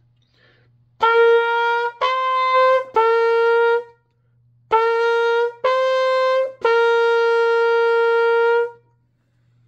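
Trumpet playing six held notes in two groups of three, each group going from a lower note up to a higher one and back down, the last note held about two seconds. The notes are a practice run between first-valve notes up to the newly introduced higher D.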